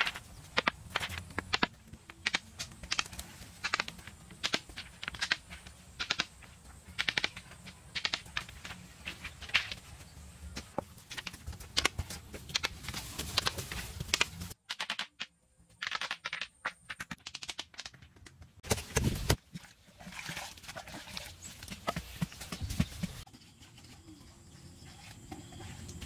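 A long series of sharp knocks or strikes, a couple a second at uneven spacing, that breaks off suddenly about halfway through. After a brief near-silent gap, a few more strikes follow.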